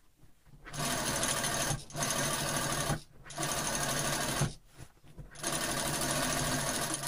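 Industrial sewing machine running in short spells of stitching along the edge of a jeans pocket bag, about 1/8 inch in. It starts about a second in and stops briefly three times.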